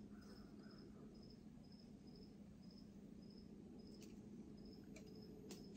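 Faint cricket chirping in the woods: a high chirp repeating steadily a few times a second over a low steady hum, with a few soft ticks.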